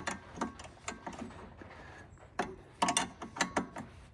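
Irregular metallic clicks and clinks from hand tools working on the steering spring hardware of a trike, in short uneven clusters with a brief ring on some, busiest a little past halfway.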